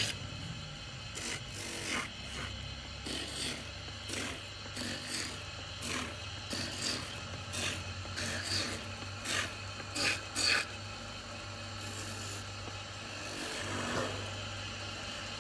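Wood lathe turning a wooden blank into spinning tops, with a steady low hum under it. A hand chisel cuts the spinning wood in repeated, uneven scraping strokes as shavings peel off.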